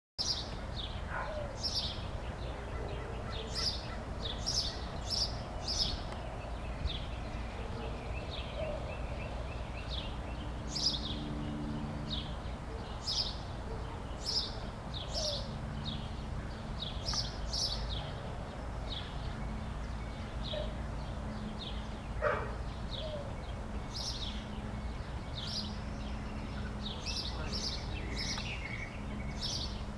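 Small birds chirping in quick bouts of short, high calls, over a steady low outdoor rumble.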